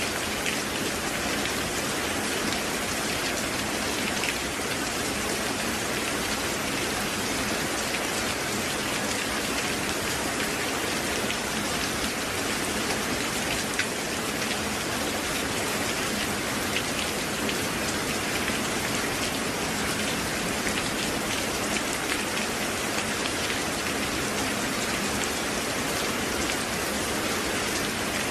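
Steady rain falling: an even hiss with many small drop ticks, unchanging throughout.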